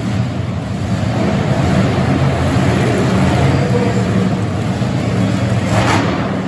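Monster truck engine running steadily, with a short burst of noise near the end.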